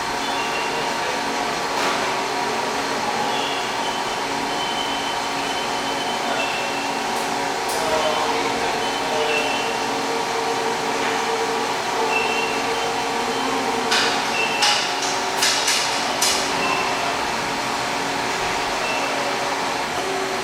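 Haas ST-10 CNC turning center running under power: a steady machine hum with whining tones that come and go. A handful of sharp clicks and clacks comes about two-thirds of the way through.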